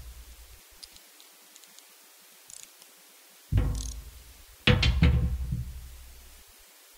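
Two heavy metallic knocks about a second apart, the second louder, each ringing briefly as it fades, made by tools or swivel parts knocked on a hard work surface.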